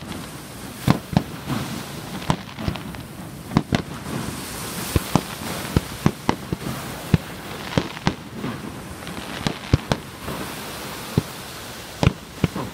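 Aerial firework shells bursting overhead: a quick, irregular string of sharp bangs, often two or three a second.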